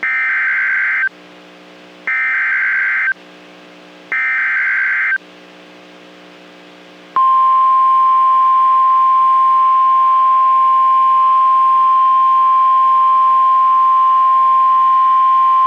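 NOAA Weather Radio Emergency Alert System (SAME) header: three short bursts of warbling digital data tones about a second apart. About seven seconds in comes the steady single-pitch 1050 Hz warning alarm tone, which signals that a new warning is about to be read.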